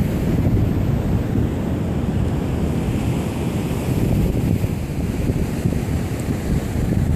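Wind buffeting the microphone in an uneven low rumble, over the steady wash of ocean surf breaking on the beach.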